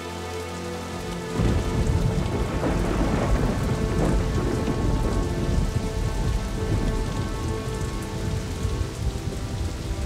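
Heavy rain pouring down, with a deep rumble of thunder that breaks in suddenly about a second in and rolls on.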